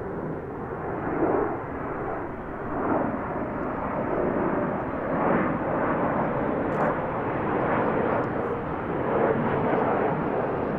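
Jet noise of a B-1B Lancer's four General Electric F101 afterburning turbofans as the bomber flies past: a rough, continuous rumble that swells and eases in uneven waves.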